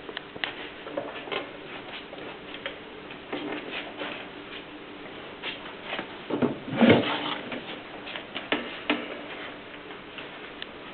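Mignon index typewriter being typed on: irregular mechanical clicks and clacks with a slight metallic ring as keys strike, and a louder clattering burst about seven seconds in.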